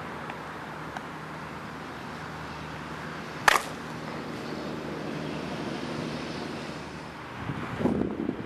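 A single sharp crack of a bat striking a baseball about three and a half seconds in, with a brief ring. A louder rustling stretch follows near the end.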